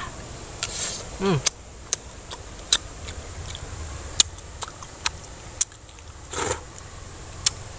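Close-up eating sounds of a raw green cactus pad being bitten and chewed: crisp, wet crunches and clicks scattered throughout, with a brief falling hum from the eater about a second in.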